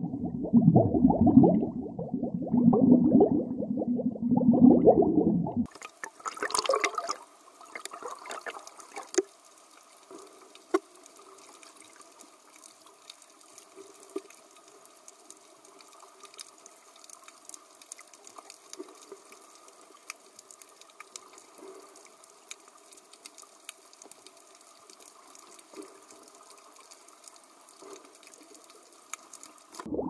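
Underwater ambience: a loud, surging bubbling of water for the first six seconds, then an abrupt change to a much quieter steady underwater hiss, crackling with many tiny clicks.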